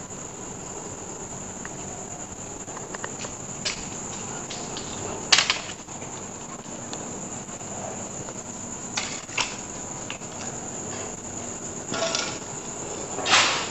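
Crickets chirring in one continuous high-pitched drone, with a few short sharp knocks scattered through it, the loudest about five seconds in and just before the end.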